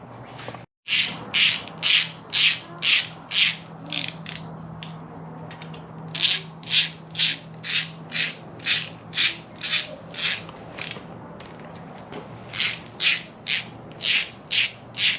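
Hand ratchet wrench worked back and forth, its pawl clicking in short, even strokes about two a second. The strokes come in three runs with brief pauses between them.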